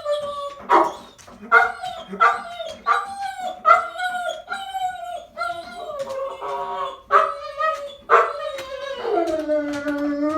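A dog's repeated yelping barks and howls, about one a second, in a greeting. Near the end they run into one long howl that falls in pitch and holds.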